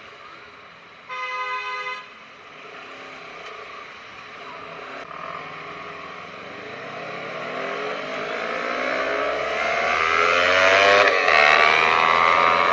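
A short horn beep about a second in, then a motorcycle engine accelerating, its pitch rising steadily and getting louder, with a gear change near the end before it climbs again.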